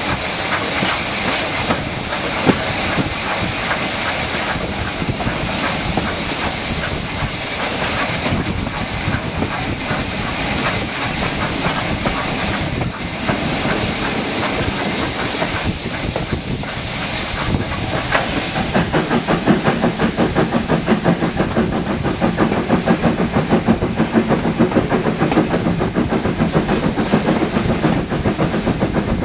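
Steam locomotive 51456 running with its train, heard from a coach just behind it: a steady hiss over the running of the wheels on the rails. About two-thirds of the way through, a regular pulsing beat of two or three a second sets in.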